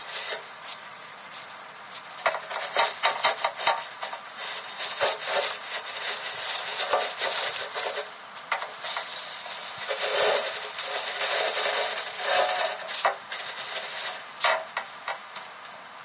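Handling noise on a phone's microphone: close, irregular rubbing, scraping and clicking with no speech, heaviest between about eight and thirteen seconds in.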